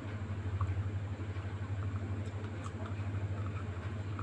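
Steady low hum, with faint scattered ticks from a lidded pot of chicken in sauce simmering on a gas burner.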